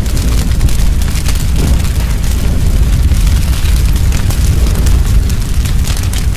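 Logo sound effect: a loud, steady deep rumble with fine crackling over it, like fire and flying sparks.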